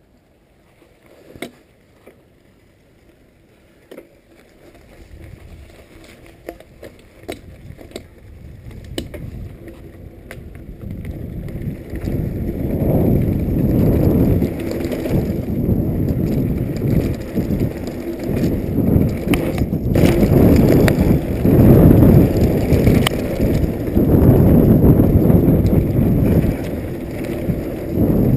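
Riding a Specialized Stumpjumper FSR mountain bike on a trail: wind rushing over a GoPro Hero2's microphone, with the bike rattling and knocking over the ground. The first few seconds are quiet with a few sharp clicks; the wind rush builds and becomes loud from about twelve seconds in.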